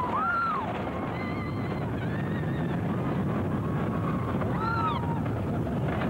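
Riders screaming on a B&M inverted roller coaster, several cries rising and falling in pitch over the steady roar of the running train. The two loudest screams come right at the start and about five seconds in.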